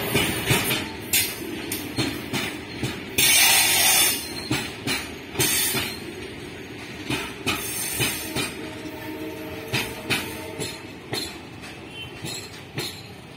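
BCNA covered goods wagons rolling past, their wheels clicking over rail joints in an uneven clatter, with a louder rushing burst about three seconds in and a faint thin wheel squeal near the middle. The sound fades as the brake van at the tail of the rake goes by near the end.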